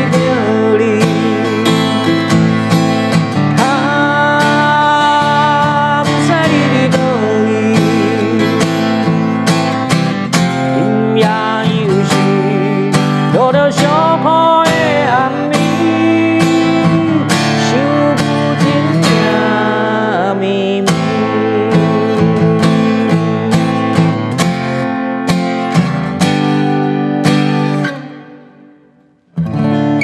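Acoustic guitar strummed to accompany a man singing a slow Taiwanese Hokkien ballad. The song dies away shortly before the end, then the guitar strikes up again.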